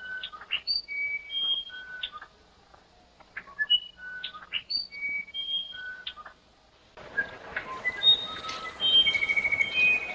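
Musician wren (the uirapuru) singing: a phrase of clear whistled notes at many different pitches mixed with short clicking notes, sung and then repeated about three seconds later. From about seven seconds in the song grows busier, with a fast trilled note near the end and a faint high steady tone behind it.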